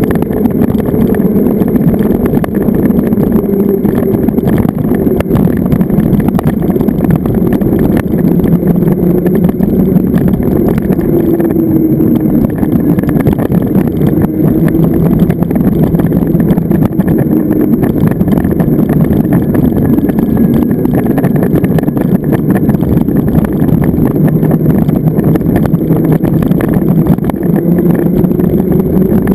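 Zero FX electric motorcycle under way: a loud, steady rush of wind and road noise, with a low hum from the electric drive that slowly rises and falls in pitch as the speed changes.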